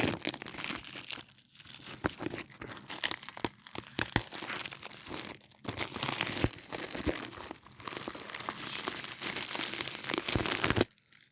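Plastic shrink-wrap being torn and crumpled off a Blu-ray case: a dense, irregular crackling with sharp snaps that stops abruptly near the end.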